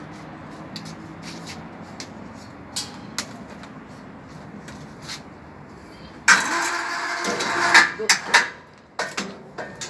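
Small electric wire-rope hoist on a balcony crane running briefly, starting suddenly about six seconds in and lasting about a second and a half, followed by a few metal clanks.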